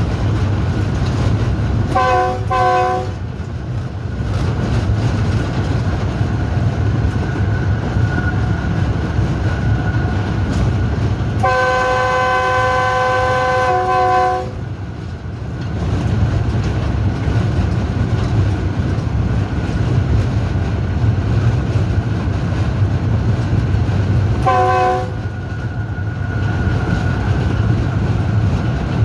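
Diesel locomotive running along the line with a steady low rumble, sounding its multi-tone horn: two short toots about two seconds in, one long blast of about three seconds near the middle, and two more short toots near the end.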